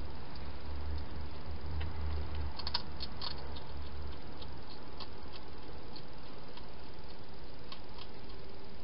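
Hedgehog eating from a bowl inside a plastic feeding box: scattered small crunching clicks, with a quick cluster about three seconds in, over a steady hiss. A low rumble runs through the first half.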